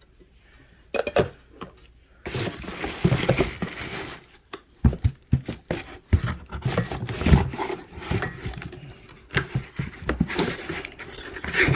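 Packaging being handled while unpacking a shipping box: a few knocks, then from about two seconds in steady rustling and crinkling of packing material with many knocks and clinks as boxed jar candles are taken out and set down.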